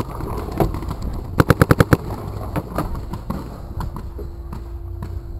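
Paintball marker firing a rapid string of about seven shots, roughly ten a second, about a second and a half in, followed by a few scattered single shots.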